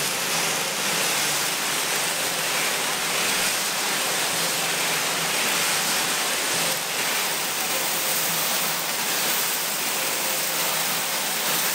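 Gravel tumbling inside a Standard J-1 biplane's original fuel tank as a cement mixer turns it, making a steady rushing rattle. The gravel is scouring heavy rust from the inside of the tank.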